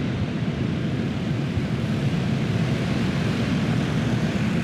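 A pack of dirt-track racing karts with Predator single-cylinder four-stroke engines running at full throttle together, blending into one steady, dense engine noise.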